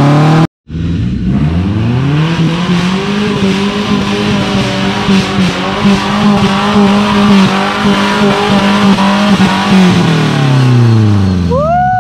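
Off-road buggy's engine revving up and held at high revs as it churns through deep mud, then dropping back off near the end. A high call sweeps up and back down at the very end.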